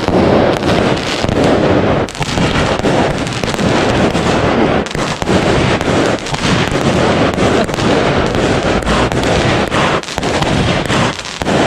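Fireworks going off in a dense, continuous barrage of bangs and crackles.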